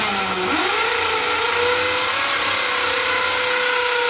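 Electric power drill boring into a wall through a TV wall bracket's mounting hole. The motor spins up about half a second in, then runs steadily at full speed.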